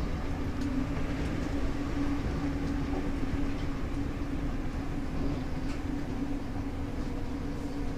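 Class 313 electric multiple unit running along the line, heard from inside the carriage: a steady low rumble of wheels on rail with a constant hum over it, and a few faint clicks.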